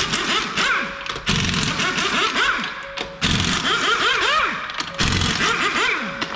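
Pneumatic or cordless impact wrench hammering on a car's wheel bolts in four short bursts, about two seconds apart, with a faint music track underneath.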